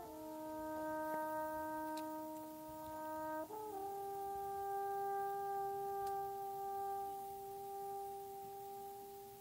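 A horn playing two long held notes: a low note for about three and a half seconds, then a step up to a slightly higher note that is held for about six seconds and fades out near the end.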